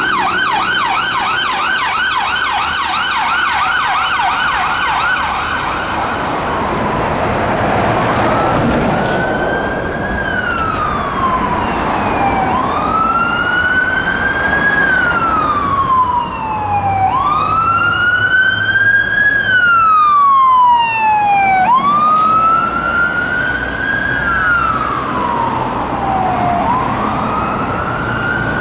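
Emergency siren of a Volvo ambulance response car in a fast yelp for about the first six seconds. It then gives way to a slow wail from a fire engine on a call, each rise and fall taking about four to five seconds.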